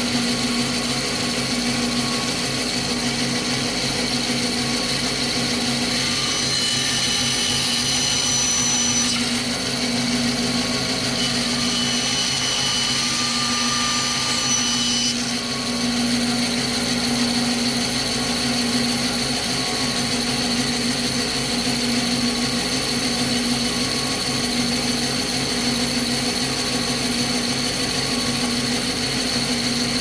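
Power tool motor running steadily at one pitch while cutting metal. The higher part of its sound changes between about six and fifteen seconds in.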